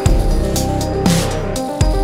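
Electronic background music with a beat.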